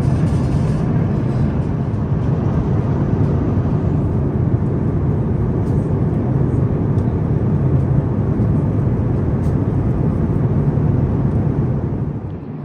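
Steady cabin noise of an Airbus A350-900 in flight: a constant rush of air with a low engine drone underneath. It drops away near the end.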